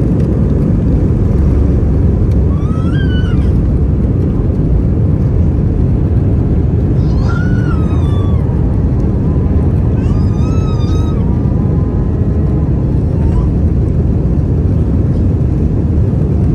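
Airbus A320 cabin during takeoff and initial climb: the engines at takeoff power and the rushing airflow make a loud, steady roar. A few short, high-pitched wailing cries rise and fall faintly over the roar.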